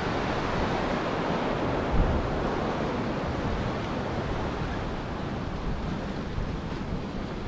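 Ocean surf washing and churning against the concrete pilings of an inlet jetty, a steady rushing noise, with wind buffeting the microphone.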